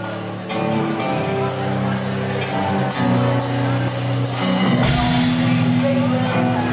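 Live punk/grunge rock band playing loud: electric guitar notes and drums, with the bass coming in heavier about five seconds in.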